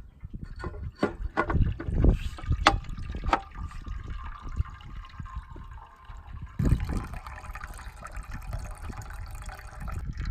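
Water running into the bowl of a Nelson automatic horse waterer as it refills. A series of sharp knocks comes first, then a steady hiss of incoming water that cuts off near the end, as the filling bowl tips the float valve shut.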